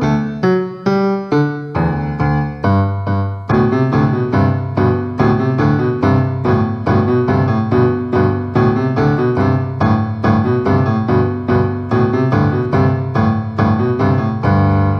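Piano music, a steady run of evenly spaced notes. A low bass part comes in about two seconds in, and the music grows fuller a moment later.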